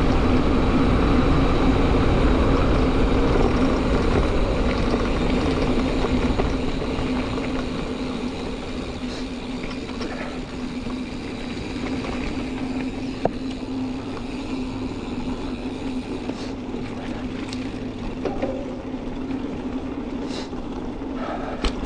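Mountain bike riding a dirt trail, heard through a helmet camera: wind rush and tyre noise, loudest for the first few seconds and then easing, over a steady low hum, with a few sharp clicks.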